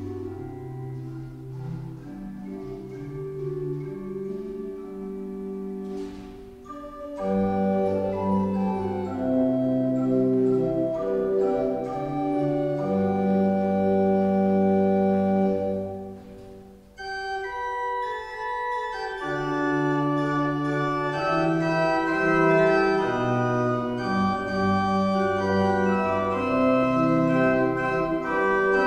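Voit pipe organ playing slow sustained chords, first on the Gedackt 8' alone. After a short break about six seconds in it comes back louder with the Holzprinzipal 4' added. After a second break about seventeen seconds in it comes back brighter with the Prinzipal 2' added as well.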